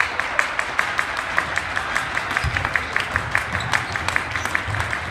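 Fast, steady rhythmic clapping from the crowd, about five sharp claps a second, with a basketball thudding on the hardwood gym floor as it is dribbled, mostly in the second half.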